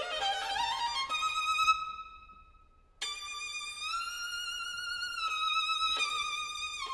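Background music: a violin playing a slow melody with vibrato. A held note fades away about two seconds in, and after a short pause a new long note enters, followed by shorter notes near the end.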